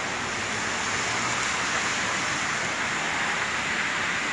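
Steady rushing water noise from a heavy thunderstorm downpour, with floodwater streaming across a tiled floor.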